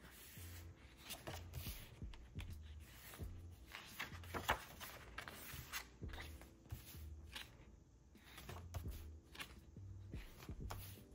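Paper pages of a photo book being turned and handled: rustles and light flicks, the sharpest about halfway through. Under them runs quiet lo-fi background music with a soft repeating bass note.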